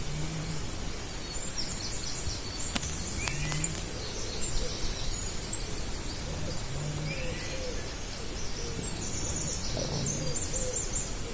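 Forest birdsong: short, low hooting calls repeat every second or two beneath higher bird chirps and quick trills.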